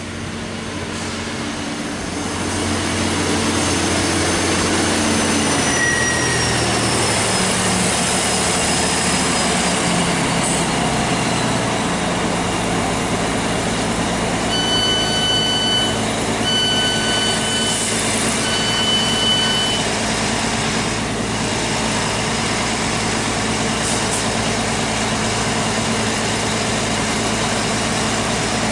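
Class 769 bi-mode multiple unit on its diesel engines, arriving and slowing to a stop, its engine and drive tones falling in pitch along with a thin falling whine. About halfway through, electronic door beeps sound in three short bursts, and the engines then settle to a steady idle.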